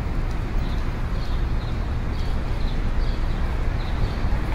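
Steady low rumble and hiss of background noise, with faint short high chirps about twice a second.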